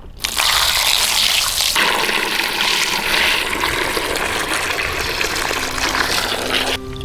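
Water running or pouring, loud and splashing, starting suddenly and cutting off near the end.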